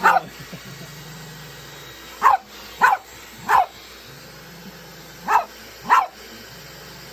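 A dog barking: six short, sharp barks in ones, twos and threes, over a low steady hum.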